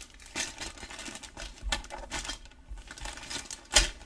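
Clear plastic bags crinkling and hard plastic model-kit sprues clicking against each other as they are handled, with one sharper knock near the end.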